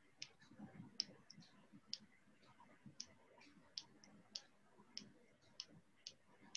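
Faint, irregular computer-mouse clicks, roughly two a second.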